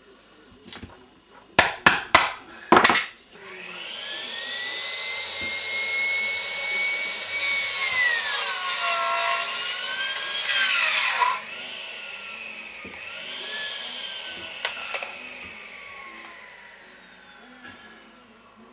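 A few sharp knocks, then an electric mitre saw spins up to a steady whine and cuts through a wooden board, its pitch sagging under load for about four seconds. The motor is briefly run up again and then winds down with a long falling whine.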